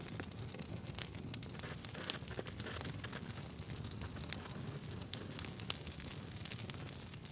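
Wood fire burning, with frequent sharp crackles and pops from the logs over a steady low rumble of flame.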